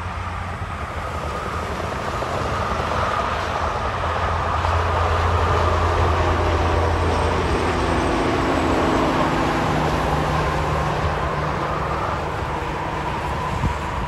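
Semi truck with a scrap-metal trailer passing at highway speed: a steady diesel engine note and tyre rush that swell to a peak about halfway through and then fade.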